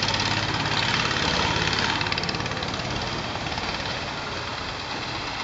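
Motorboat engine running with a fast, even knocking beat, easing off after about two seconds.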